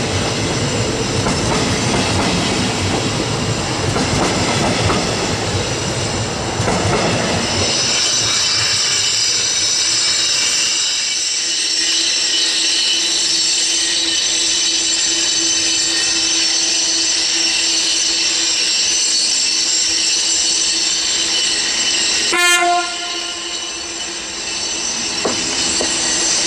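DB Regio double-deck trains in a station. For the first several seconds one rumbles and clatters over the rails as it moves off. Then an arriving train on curved track gives a steady high squeal from its wheels, with a low steady hum beneath. A brief loud sound comes a few seconds before the end.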